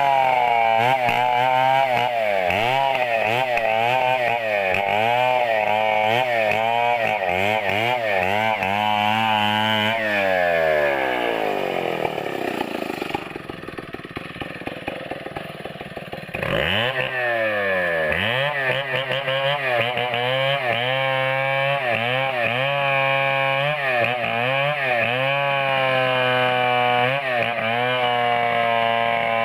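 Chainsaw cutting a coconut palm trunk, the engine's pitch dipping and rising as the chain bites. About ten seconds in it winds down to idle for several seconds, then revs sharply back up and cuts again.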